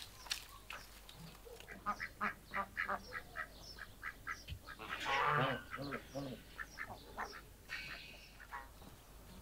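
Farmyard poultry calling: a run of short clucks, then a louder drawn-out call about five seconds in, followed by a few more short calls. Dry brushwood rustles briefly at the very start.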